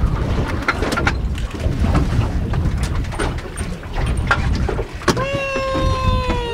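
Steady low rumbling wind and water noise on an open boat, with scattered light knocks. About five seconds in, a long, high voice call starts and slowly falls in pitch over about two seconds.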